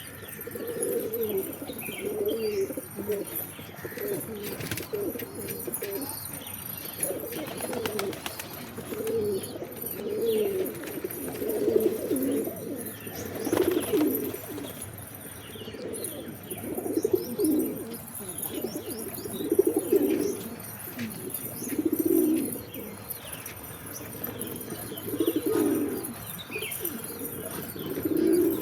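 Pigeons cooing, one low throaty coo after another every second or two.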